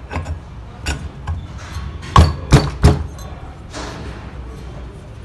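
Three sharp knocks in quick succession about two seconds in, with lighter clicks before them: a part being tapped into place on a washing machine's new wash motor.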